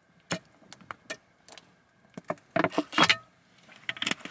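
Thin plastic water bottle crinkling and crackling as it is drunk from and handled: a scatter of short sharp clicks, with a louder burst of crackling about two and a half to three seconds in.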